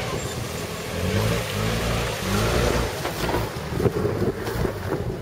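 Nissan Patrol GR 4x4's engine running at low revs, its note rising and falling slightly about a second in, with wind buffeting the microphone.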